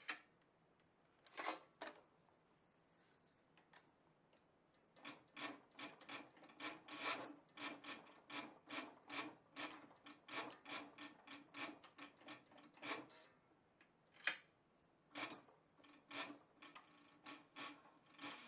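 Cowboy CB-4500 heavy leather sewing machine driven slowly by its servo motor, stitching through several layers of saddle leather: a regular run of needle strokes, about two to three a second. It stops briefly past the middle, then starts again, with a couple of single strokes before the first run.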